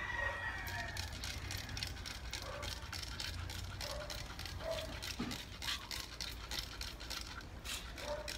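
Hand trigger spray bottle squirting water onto potted plants in quick, repeated squirts, growing denser from about three seconds in.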